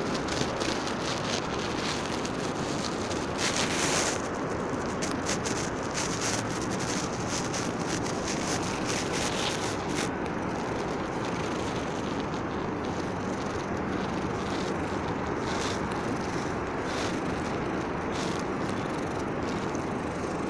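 A cat purring steadily close to the microphone, with light rustling over the top that is busier in the first half.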